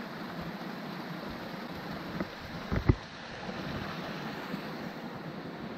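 Hot spring water rushing steadily down a rocky stone channel, with a few sharp knocks a little past the middle, the loudest about three seconds in.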